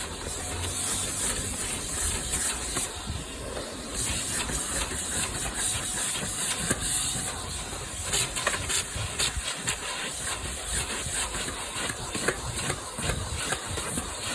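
Vacuum cleaner running with a steady high hiss as its nozzle works over a car floor mat, with many short clicks and scrapes of the nozzle and picked-up grit. The hiss dips briefly about three seconds in.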